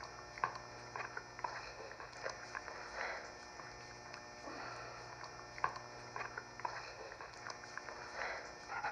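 Soft rustling and scattered small clicks close to the microphone from a furry pet moving about, over a faint steady hum.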